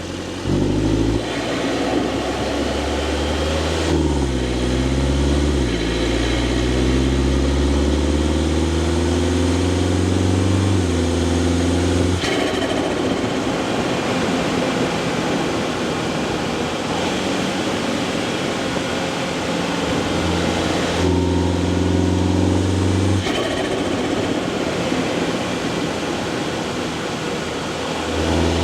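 Mini Clubman S's turbocharged 2.0-litre four-cylinder engine running, its note holding steady, dipping and climbing a few seconds in, then turning rougher and noisier for long stretches with sharp changes at about 12 and 23 seconds in.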